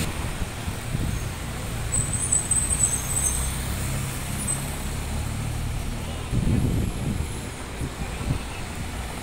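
City street traffic: motor vehicles passing with a steady low engine rumble that swells about six seconds in. A brief high-pitched squeal sounds about two seconds in.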